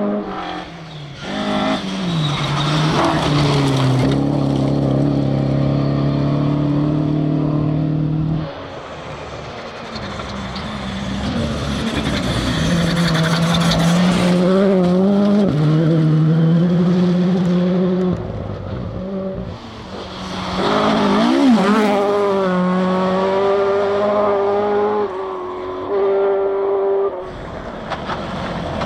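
Rally car engines run hard at high revs, with the pitch stepping at gear changes and rising and falling as the throttle is worked, over several short passes that cut abruptly from one car to the next.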